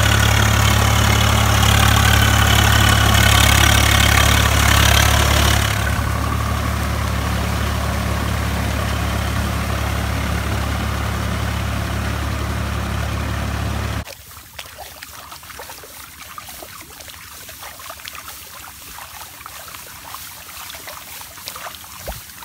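Swaraj 744 FE tractor's three-cylinder diesel engine running steadily while working a flooded paddy field. About 14 seconds in it cuts off abruptly to a much quieter scene of faint small splashes in muddy water.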